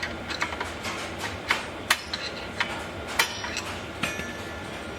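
Light metallic clicking, irregular and several a second, from the rear parking-brake shoe's knurled star-wheel adjuster being backed off a few clicks and the brake disc turned by hand. The clicking stops about three and a half seconds in.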